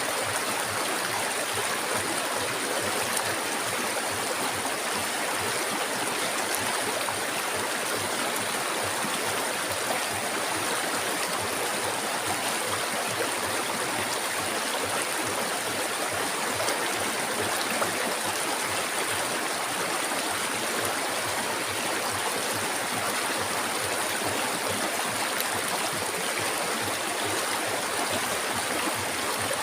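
River water flowing steadily over rocks, an even rushing with a steady high hiss above it.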